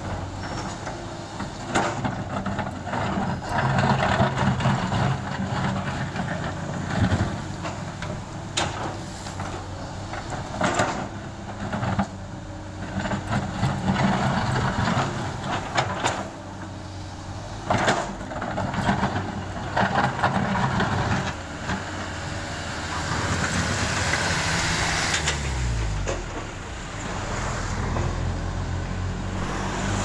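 Komatsu PC200 excavator's diesel engine running and revving up and down under hydraulic load, with repeated sharp knocks and clanks as the bucket works broken asphalt. Near the end comes a long hiss and an engine note falling in pitch.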